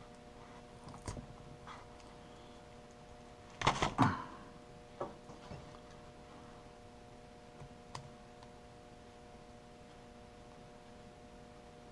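Workbench handling sounds while stripping the outer jacket off a black 12-3 power cord: a few light clicks, and a short cluster of louder knocks and scrapes about four seconds in. A steady electrical hum runs underneath.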